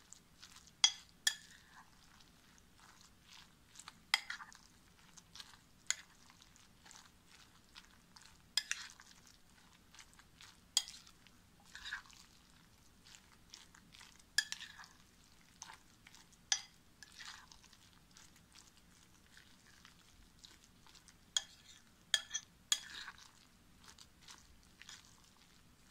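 Metal spoon stirring a wet batter of grated zucchini, carrot and egg in a glass bowl, clinking sharply against the glass at irregular moments, about every one to two seconds.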